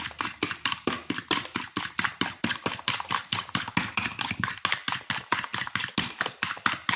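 A spoon beating a mixture in a ceramic mug, clinking against the sides in a fast, even rhythm of about seven strokes a second.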